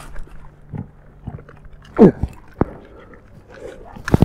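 A dog gives one sharp bark that falls steeply in pitch, about two seconds in. A click follows it, and there are loud knocks near the end.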